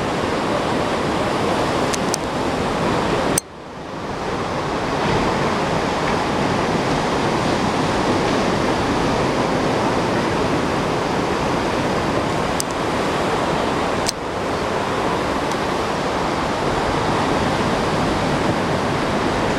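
A steady, fairly loud rushing noise outdoors. It drops out abruptly about three and a half seconds in, then fades back up over a second or two, with a few faint clicks scattered through it.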